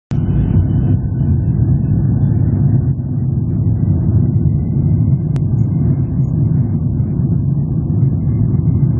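Boeing 737-800's CFM56 jet engines and runway rumble heard inside the passenger cabin during the takeoff roll: a loud, steady, low rumble.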